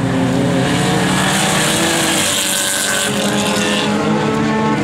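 Autocross race car's engine running hard at high revs as it accelerates along a dirt track, its pitch shifting with throttle and gear changes, with a hiss over the middle of the run.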